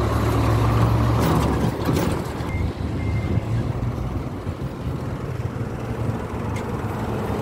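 Steady road-vehicle noise: a low engine hum under a broad rush of road noise, a little louder in the first two seconds before easing off.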